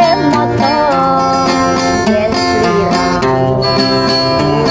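A woman singing a slow pop song live, accompanied by an acoustic guitar.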